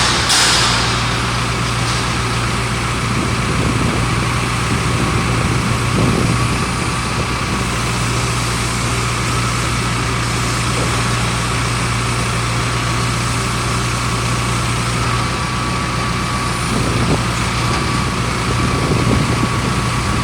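Hydraulic drill rig's engine running steadily with an even low drone, after a few sharp clicks right at the start.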